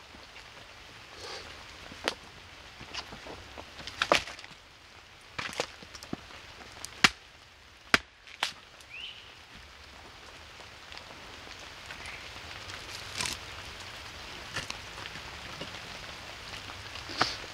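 Axe blows splitting wood, about five sharp strikes a second or two apart in the first half, with rain pattering steadily on the camp and growing heavier in the second half.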